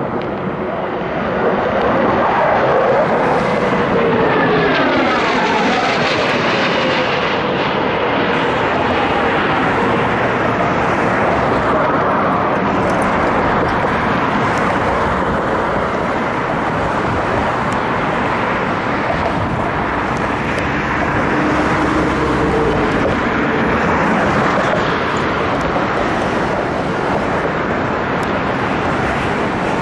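F/A-18 Hornet jet aircraft passing overhead, loud jet engine noise that swells about a second and a half in. Pitch tones fall between about two and eight seconds in as a jet goes by.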